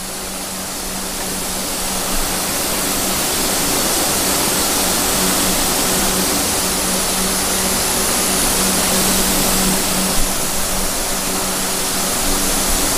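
Steady rushing hiss with a constant low hum: the background noise of a large parcel-sorting warehouse's machinery. It grows louder over the first few seconds, then holds.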